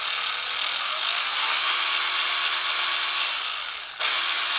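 Husky 12-volt cordless ratchet's motor spinning the drive head, its speed rising, holding and falling as the variable-speed trigger is squeezed and eased, with a short break about four seconds in before it spins up again.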